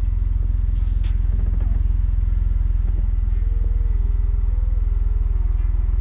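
2001 BMW 325i's 2.5-litre straight-six running, a steady low rumble, with a few light clicks in the first two seconds and a faint tone that shifts slightly in pitch midway.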